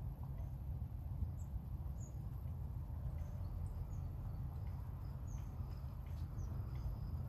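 Steady low wind rumble on the microphone, with faint, short high-pitched chirps of small birds scattered through it.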